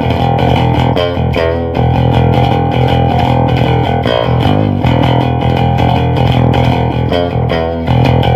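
Custom electric bass guitar with humbucker and Precision pickups both on, played with a pick through a bass amp cabinet: a continuous line of sharply attacked notes.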